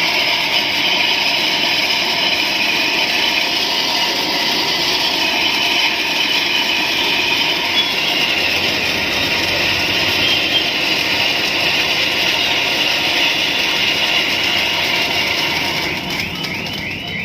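Stage pyro spark effect running with a loud, steady hiss. Near the end a quick series of short chirps starts.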